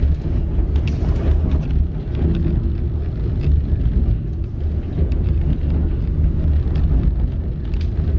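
Steady low rumble of the White Pass & Yukon Route train running up the grade, heard from aboard, with scattered light clicks and rattles.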